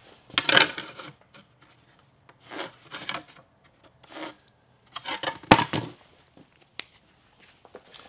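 Sharpie marker drawn in several short strokes along a speed square across the ridged, textured back of a ceramic tile, with a sharp knock about five and a half seconds in.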